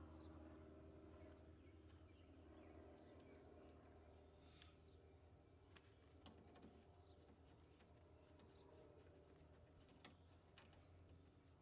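Near silence: a faint low hum with scattered faint clicks and ticks.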